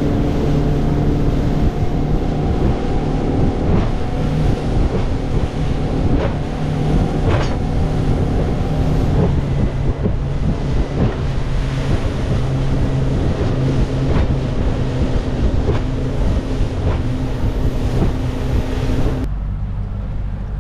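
Small boat's engine running steadily underway, with wind buffeting the microphone and occasional knocks of the hull on the chop. Near the end the engine tone drops away.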